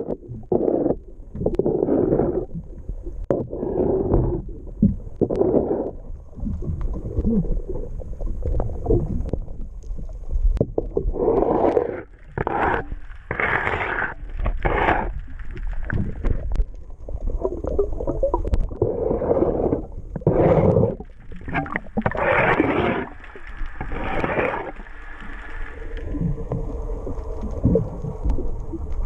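Repeated scraping strokes on a boat's hull, a stroke every second or two, as small barnacles and fouling are scraped off, with a low rumble of wind on the microphone.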